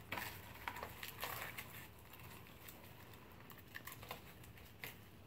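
Faint rustling of tissue paper and a few light clicks as hands dig through a cardboard box, busiest in the first second or so.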